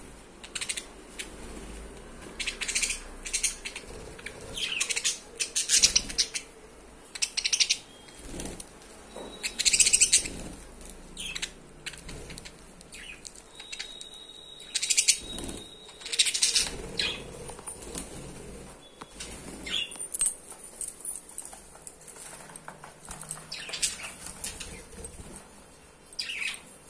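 Caged budgerigars chirping and squawking in short, irregular high-pitched bursts, with wings flapping as they move about the wire cage. A single held whistle-like note sounds about halfway through.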